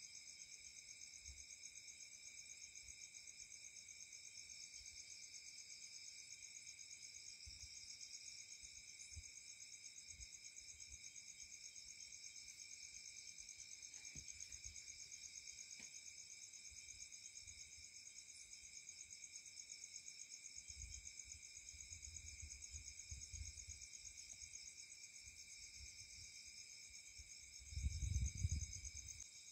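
Night insects chirring steadily in several high, finely pulsing bands. Near the end a short low rumble comes from the camera being handled and moved.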